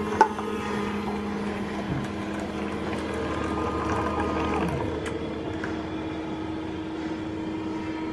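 Keurig commercial drink machine running, its pump humming steadily as it dispenses a hot drink into a paper cup. A sharp click comes about a quarter second in, and a brief falling tone around the middle.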